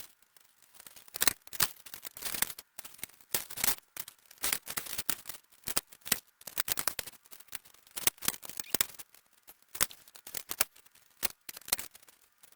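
Metal bicycle spokes clicking and clinking against the hub and rim as they are threaded in while lacing a wheel, sped up, so the sharp metallic ticks come quick and irregular.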